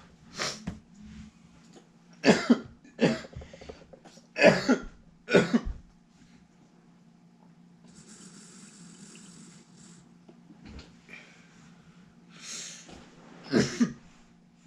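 A man coughing hard, about six coughs in a fit during the first six seconds and another near the end, with a long breathy exhale about eight seconds in; the coughing follows a big dab of concentrate vapour. A steady low hum sits underneath.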